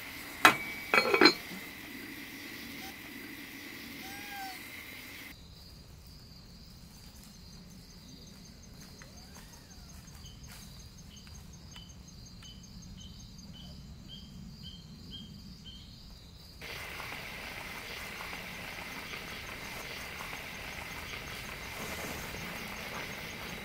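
Night insects, crickets among them, chirping steadily. Midway the insect sound changes to a run of short, evenly spaced chirps, about two a second. About half a second in and again around a second in, a metal spoon knocks against a cast iron pot with a brief metallic ring; these knocks are the loudest sounds.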